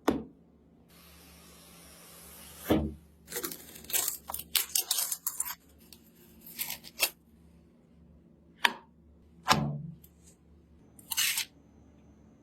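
Hands handling computer parts and their packaging: a tearing hiss about a second in, then a string of clicks, rustles and a few sharper knocks.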